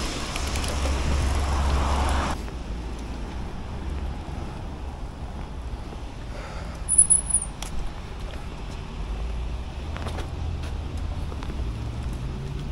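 Street traffic noise: a louder rush for the first couple of seconds that cuts off suddenly, then a steady low rumble with a few faint clicks and a brief high squeal about seven seconds in.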